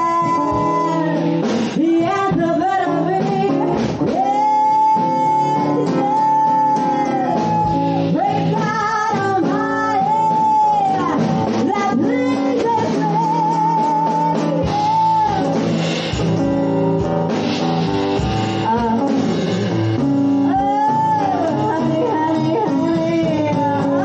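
Live band playing a song: a singer holding long notes, some with vibrato, over guitar and drum kit.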